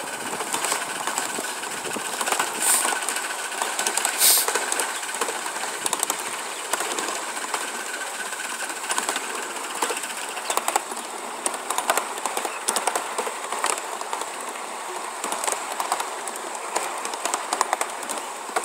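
Miniature 1-inch-scale ride-on train running along its track: a steady rolling rattle with quick, irregular clicks of the wheels over the rails.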